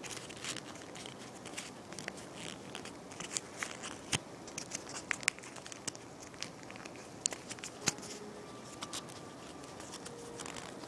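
Paper crinkling and crackling in short, irregular bursts as a strip of paper is folded and pressed by hand into an origami ring.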